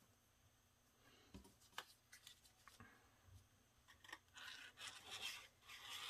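Faint handling of cardstock strips on a cutting mat with a few light clicks, then a glue stick rubbed back and forth along a paper strip, a soft rubbing hiss from about four seconds in.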